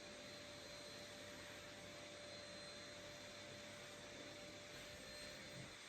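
Near silence: room tone with a faint steady hiss and hum.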